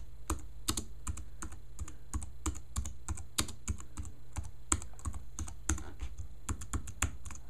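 Fast typing on a slim low-profile computer keyboard: a quick, irregular patter of key clicks, several a second, over a steady low hum.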